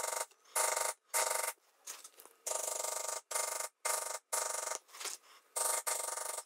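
Lightweight maul rapidly tapping a metal steep edge beveler into tooling leather, in about nine short runs of under a second each with brief gaps between them. This is a second beveling pass to deepen and crisp up the edges of the carved lines.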